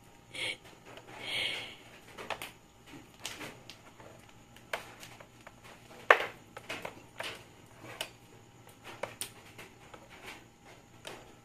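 Persian kittens playing on a hard floor: scattered light taps and scuffs from paws and a dangled cord toy striking the floor, with one sharp click about six seconds in.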